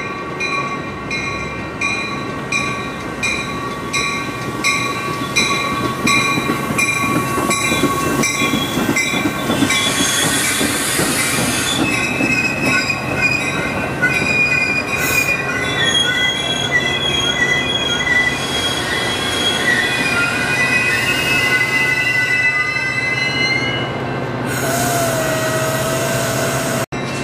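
Metra bilevel commuter train braking into a station. A bell rings steadily for the first nine seconds or so, then the brakes and wheels squeal in wavering high tones as the train slows. Near the end comes a short burst of air hiss as it comes to a stop.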